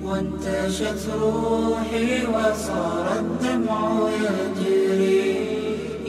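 Background music: unaccompanied devotional vocal chanting, a nasheed-style voice holding long, gliding notes.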